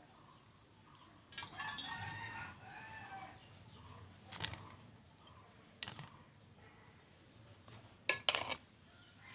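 A rooster crowing once, about a second in, the call lasting about two seconds. A few sharp clinks of kitchen utensils follow.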